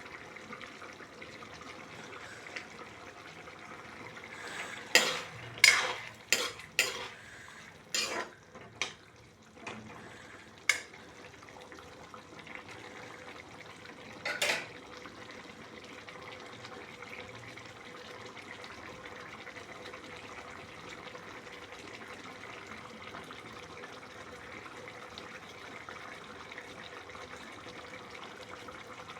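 A metal spoon clanking and scraping against cookware, about half a dozen sharp knocks in quick succession, then two more a few seconds apart, over a steady hiss.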